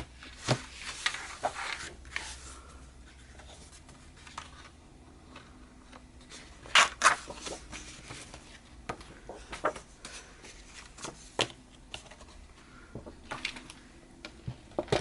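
Paper and craft pieces being handled on a work table: scattered rustles and short clicks and taps, with two louder snaps about seven seconds in.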